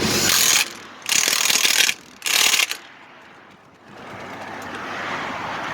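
Ratchet wrench being cranked in three quick bursts, each under a second long, with short pauses between.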